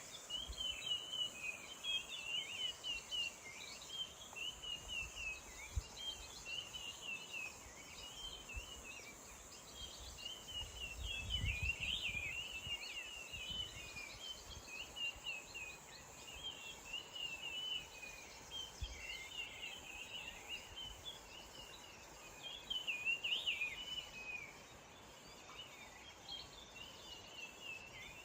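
Birds chirping and twittering without pause in a dense chorus of short, rapidly varying notes, over a steady high insect drone. A brief low rumble comes near the middle.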